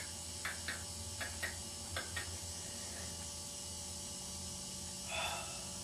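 Quiet room tone with a steady low electrical hum, a few soft clicks in the first couple of seconds and a brief rustle about five seconds in.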